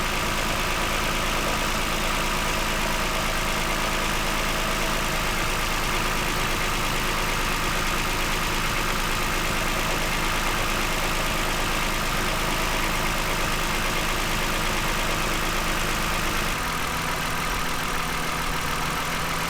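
2009 Toyota Highlander engine idling steadily, with no misfire after its ignition coils were swapped between cylinders. About three seconds before the end the tone shifts and gets slightly quieter.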